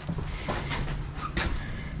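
Footsteps and scuffing handling noise from someone walking, with a couple of light knocks.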